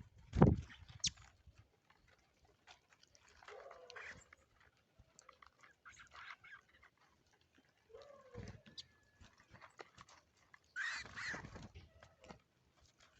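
Wild birds at a feeding spot: scattered clicks and a few short, scratchy bursts of bird sound, the loudest a little past two-thirds of the way through, with one loud thump just after the start.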